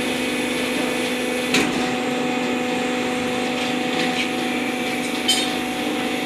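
Hydraulic paper baling press running with a steady motor-and-pump hum, with two sharp knocks, one about a second and a half in and one near the end.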